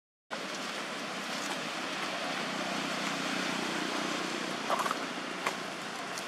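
Steady rushing background noise, with a few sharp clicks about five seconds in.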